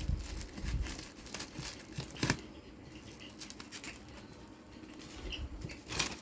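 Parcel packaging being torn open and crinkled by hand: irregular scratchy ripping and rustling, with a sharper rip about two seconds in and another near the end.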